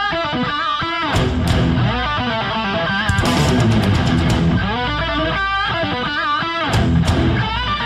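Rock intro music led by electric guitar: a fast lead line with pitch bends over bass and drums, with a few sharp drum or cymbal hits along the way.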